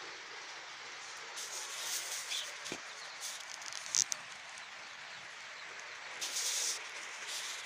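Steady outdoor background hiss with a few short high rustles and a sharp chirp about four seconds in.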